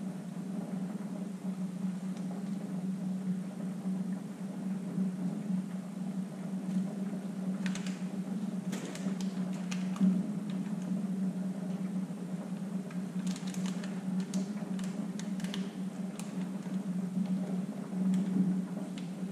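Steady low mechanical hum, with scattered light clicks and rustles of small seals and parts being handled, in two clusters in the middle of the stretch.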